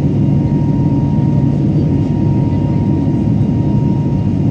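Steady engine and airflow roar of a passenger jet airliner heard inside the cabin while it climbs out after takeoff, with a thin steady whine above it.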